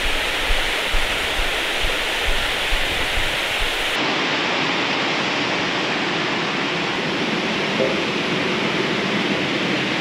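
Mountain stream rushing over boulders and small cascades, a steady roar of water. In the first few seconds a low gusty rumble of wind on the microphone sits under it; this stops about four seconds in, and the water rush goes on alone.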